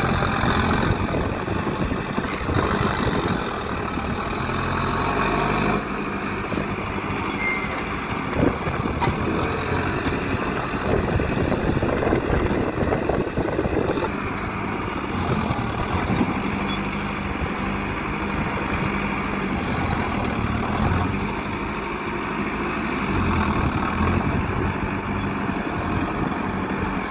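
Mahindra 605 DI tractor's diesel engine running under load, its pitch rising and falling as the tractor drives and works its front-end loader.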